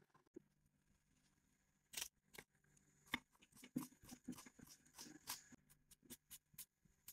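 Small kitchen knife cutting onion and tomato by hand over a clay plate: a run of faint, crisp cutting clicks starting about two seconds in.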